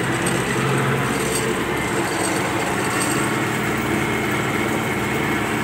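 MTZ-82 tractor's four-cylinder diesel engine running steadily, heard from inside the cab as the tractor pulls a disc harrow across wheat stubble.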